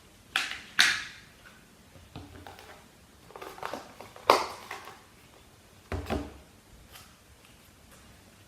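A handful of short clattering and rustling handling sounds, the loudest a sharp knock about four seconds in: plastic slime containers and lids being picked up, opened and set down as a slime is readied.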